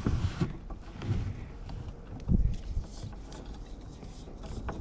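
Low thumps and knocks from a plastic kayak and its paddle being handled, carried through the hull to the boat-mounted microphone, with the loudest thump about two seconds in and a few light clicks.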